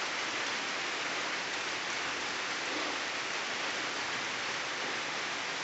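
Light rain falling, a steady even hiss of fine drops.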